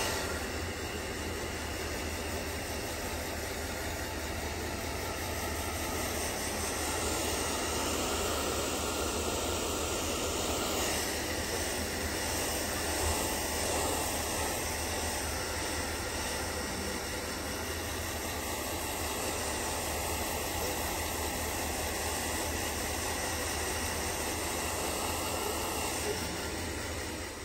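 Handheld hair dryer running steadily, blowing a constant rush of air with a low hum underneath, drying a wet plush toy's fur.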